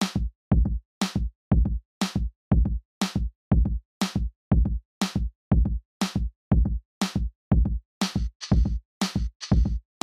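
Background music: an electronic drum-machine beat, about two strong beats a second with lighter hits between.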